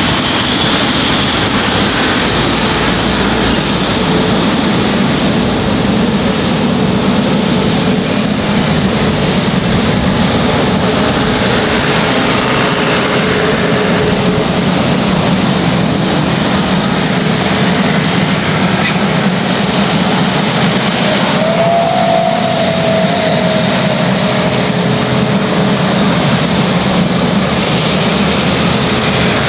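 Airbus A350 jet engines (Rolls-Royce Trent XWB) running as the airliner rolls out on the runway after landing, a steady, loud rumble with a faint hum.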